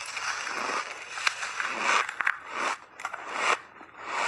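Refrozen ice crunching as big bites are taken out of a large chunk and chewed: a dense run of crisp, squeaky crunches and cracks in irregular bursts.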